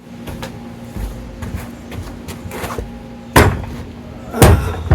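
A heavy oak cart on small wheels being moved by hand: a low rumble of the wheels and wood, with two loud knocks about three and a half and four and a half seconds in.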